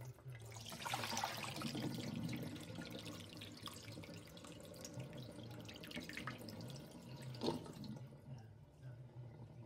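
Rinse water pouring off a bowl of raw chicken gizzards into a sink, loudest in the first few seconds and thinning to trickles and drips, with one sharp knock near the end.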